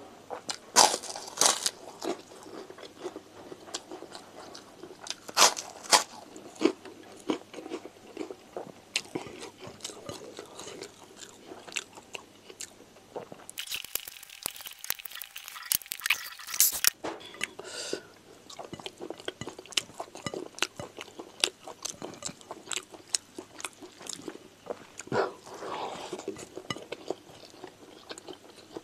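A person chewing a mouthful of rice and side dishes close to the microphone, with wet mouth sounds and repeated sharp crunches, a few of them much louder.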